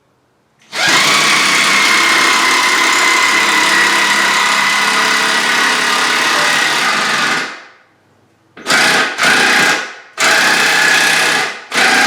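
Power drill running at full speed in one long run of about seven seconds, then stopping and starting in three or four short bursts near the end, with a steady high whine.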